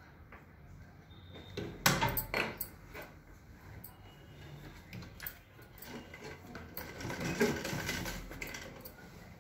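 Light metallic clicks and clinks with fabric rustling as cloth is handled and positioned under a sewing machine's presser foot. A cluster of sharp clicks comes about two seconds in, and a longer, busier stretch of rustling and clinks around seven to eight seconds in.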